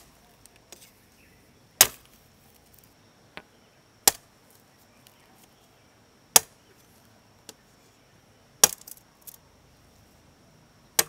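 Machete chopping into a fresh bamboo stalk: five sharp, loud strikes about two seconds apart, with a few lighter knocks between them.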